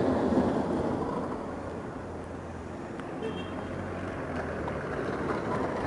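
Street traffic noise, loudest at the start as a car passes close by, then a steady low engine hum.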